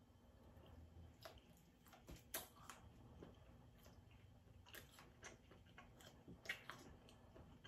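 Faint chewing of a mouthful of corn dog, with scattered soft, irregular mouth clicks and smacks.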